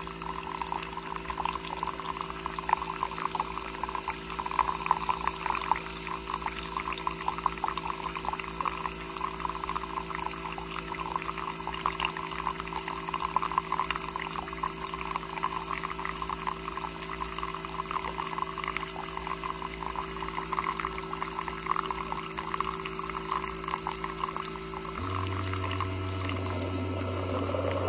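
A thin stream of coffee from a coffee maker trickles steadily into a mug of coffee, over the machine's steady hum. About 25 s in, the hum changes to a lower, louder drone.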